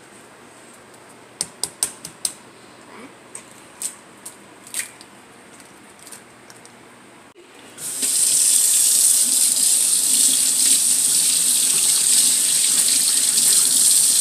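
A run of sharp clicks and taps as an egg is cracked over a plastic container of cake batter, then, about eight seconds in, a kitchen tap is turned on and water runs steadily and loudly into a stainless steel sink over washing hands.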